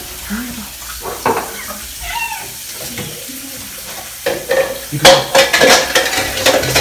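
Dishes and cutlery clattering at a kitchen counter while a mixture is prepared: fairly quiet at first, then a busy run of sharp clinks and knocks from about four seconds in. Faint voices murmur underneath.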